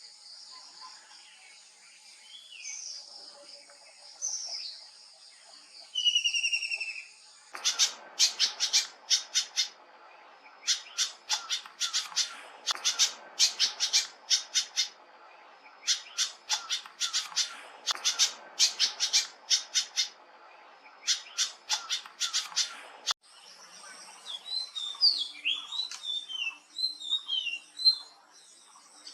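Wild birds calling, in three different recordings. First come clear whistled notes that slide in pitch. Then, from about 7 seconds in, loud harsh rattling chatters come in repeated bursts of a second or so each, until about 23 seconds in. After that, quick twittering chirps play over a steady high insect-like hum.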